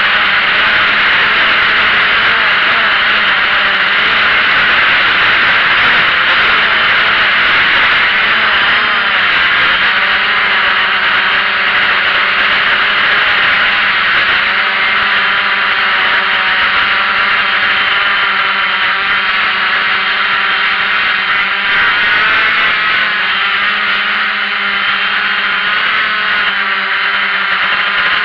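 Small camera drone's electric motors and propellers whirring, heard through its onboard microphone. The sound is loud and continuous, with a hissing rush and several humming tones that waver slightly in pitch as it manoeuvres.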